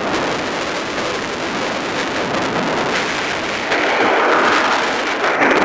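Wind rushing over the microphone and longboard wheels rolling fast on asphalt during a downhill run; the rush grows louder and brighter a little under four seconds in.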